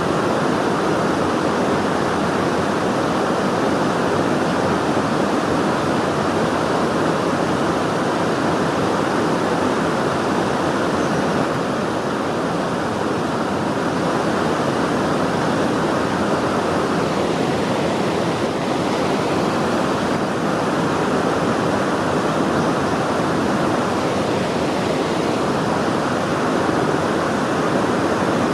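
Steady rushing of river water pouring through a weir, an even noise with no breaks.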